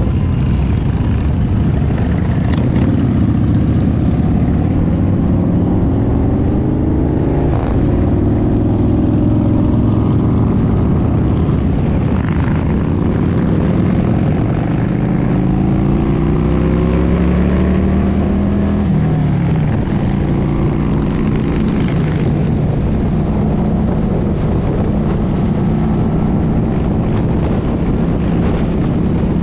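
Motorcycle engine running under way, its note climbing as the bike accelerates and dropping back at each gear change, about 7 and 19 seconds in.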